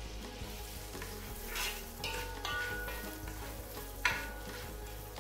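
Chopped onions sizzling as they fry in melted butter in a pot, stirred with a spoon that scrapes the pot a few times, with one sharp knock of the spoon about four seconds in.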